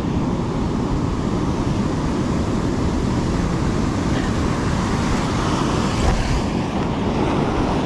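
Steady rush of surf breaking along the shore, with wind rumbling on the microphone.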